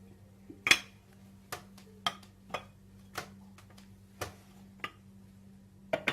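A spoon clicking and tapping against kitchen containers while spices are spooned out: a series of short, irregular taps roughly every half second to second, the loudest one near the start.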